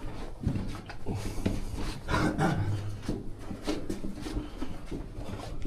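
Footsteps and scuffing on the rocky floor of a mine tunnel: a string of irregular knocks and scrapes, with a longer scraping rustle about two seconds in.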